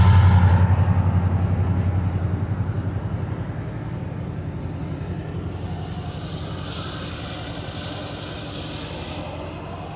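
Diesel engine of a Metrolink MP36PH-3C locomotive, a 16-cylinder two-stroke, running under power with an even low throb as the train pulls out. It fades steadily as the train draws away.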